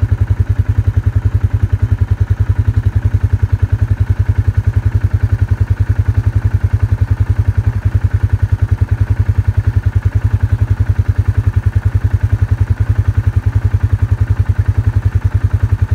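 Small engine running steadily at low speed, an even putter of about ten pulses a second with no change in pace.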